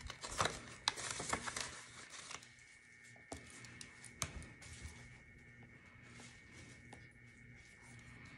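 Paper cash envelope and banknotes rustling as a ring binder is handled, with a run of light clicks and rustles in the first couple of seconds, then mostly quiet apart from two single sharp clicks and a faint steady high hum.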